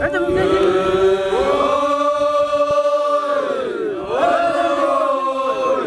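Several voices chanting together, holding two long notes with a short break between them.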